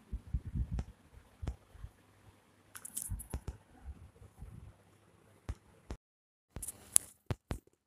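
Scattered soft taps, thumps and rustles of handling and movement on a cloth quilt, with no voice. About six seconds in the sound drops to dead silence for a moment, then a few sharp clicks follow.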